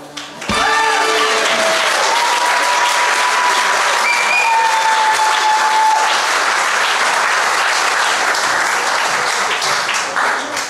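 Audience applauding and cheering in a hall, starting about half a second in and fading near the end, with one long high call from the crowd held over it for a few seconds.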